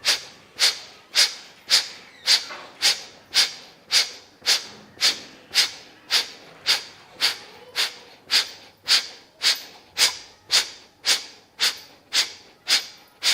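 Kapalabhati pranayama through one nostril: a rapid run of forceful nasal exhalations, each pumped out by the belly, nearly two a second, each a short sharp hiss. The run stops near the end.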